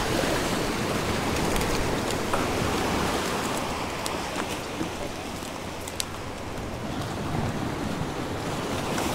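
Surf washing and splashing against the jetty's rocks, a steady rush of water, with a few faint clicks.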